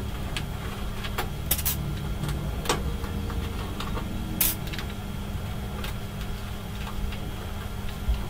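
Handling noise from the underside of a FlashForge Dreamer 3D printer: a handful of sharp clicks and light taps, most in the first half, over a steady low hum.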